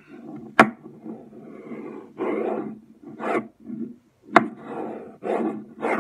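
Egg-shaped buzzing magnets snapping together with a sharp click twice, about half a second in and again after four seconds. Between the clicks come short rasping, rattling stretches as the magnets slide and jostle on the tabletop.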